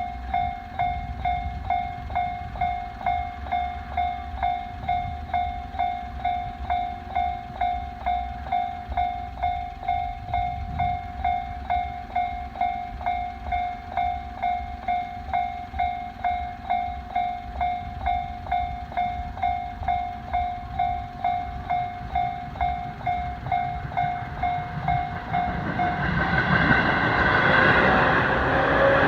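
Japanese level-crossing alarm ringing an evenly repeated electronic ding, a little under two strokes a second. Near the end the rumble of a Tobu Tojo Line electric train rises over it as the train reaches the crossing.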